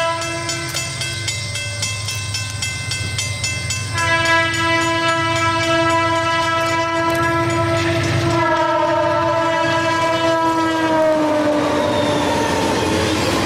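Burlington Northern diesel locomotive's air horn: two short blasts, a pause, then a long blast from about four seconds in whose pitch drops as the locomotive passes, over the low rumble of the engines. Near the end the horn fades into the steady rolling clatter of the flatcars carrying highway trailers.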